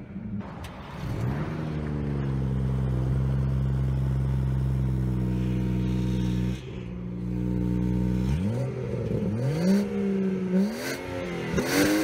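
BMW M240i's 3.0-litre twin-turbo inline-six revved while parked: it climbs and holds a steady high rev for several seconds, drops back about six and a half seconds in, then is blipped several times in quick succession. Sharp, loud cracks break in among the last blips.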